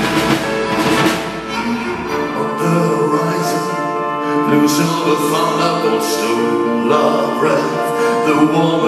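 Live band with an orchestral ensemble playing an instrumental passage of a slow song: sustained chords under a melody line, the drums dropping away after the first couple of seconds.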